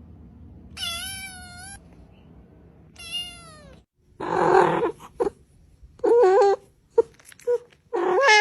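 Cats meowing in a string of separate calls. There is a long, wavering high meow about a second in and a falling meow at three seconds. After a loud, harsh cry just past four seconds come several more meows and short chirps.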